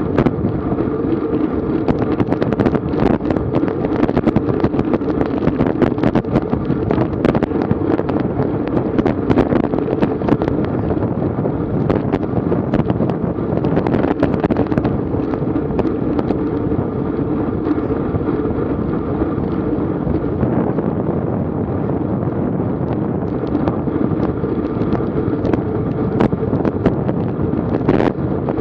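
Wind buffeting the microphone of a GoPro on a racing bicycle on a very windy day: a loud, steady rushing noise with many short clicks and knocks mixed in.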